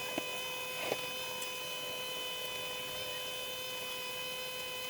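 Steady electrical hum, a set of even high-pitched tones, with two faint clicks in the first second.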